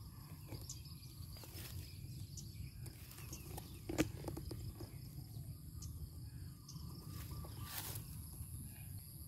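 Quiet outdoor ambience by a pond: a steady low rumble and a faint high hiss, with a single click about four seconds in and a short rustle near the end.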